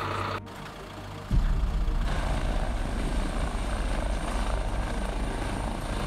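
Eurocopter EC135 air-ambulance helicopter hovering low and lifting off. The rotor chop cuts in loudly about a second in and holds steady, with a high turbine whine over it.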